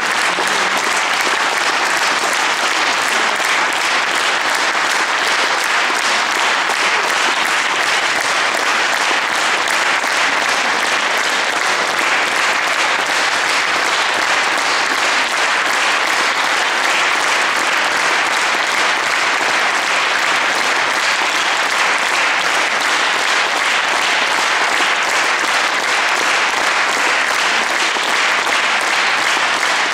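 Audience applauding: dense, steady clapping from many hands that keeps an even level throughout.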